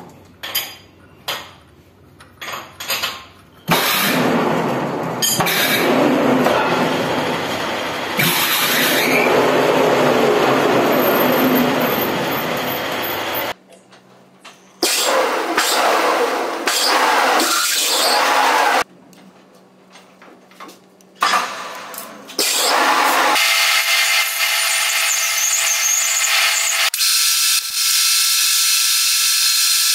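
Manual metal lathe turning a brass banjo bolt, starting and stopping several times: a loud running and cutting noise, with a steady whine in the last few seconds as the chuck spins for the outer finishing cut. Light clicks of brass parts being handled come in the first few seconds.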